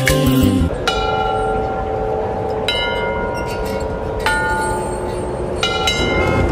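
Background music in an instrumental break of a song: sustained bell-like ringing notes, a new one struck about every one and a half seconds over a low haze, after the busier beat of the song stops about a second in.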